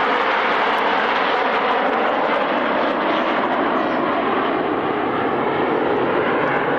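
Engines of aerobatic display aircraft flying past, a loud, steady rushing noise that eases slightly toward the end.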